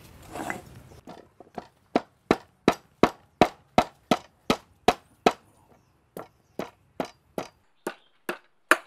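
Metal pestle pounding sliced galangal in a metal mortar: sharp, even strikes at about three a second, with a brief pause about five and a half seconds in. Galangal is hard, so it is pounded with firm blows.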